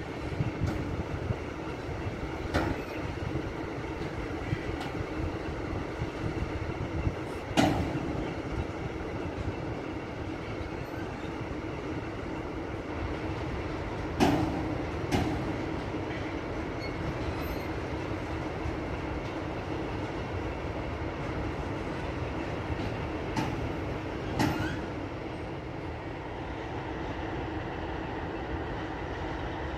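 Tank wagons of a freight train rolling slowly past, the wheels giving a steady rumble on the rails. Sharp metallic clanks come every few seconds, the loudest about a quarter of the way and halfway in.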